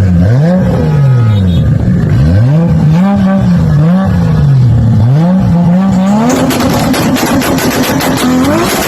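Toyota Supra engine being revved hard, its pitch rising and falling about six times in quick blips. About six seconds in, the revs are held higher and a rapid crackle of exhaust pops sets in, with the engine note rising again near the end.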